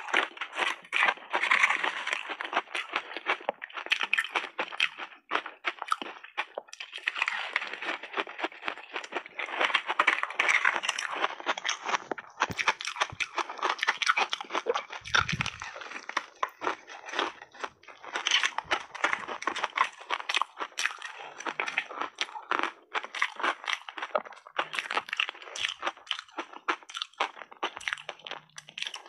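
Close-miked crunching and chewing of frozen layered ice with berries, matcha and milk: dense crackling bites that break off in short pauses between mouthfuls. A dull thump about halfway through.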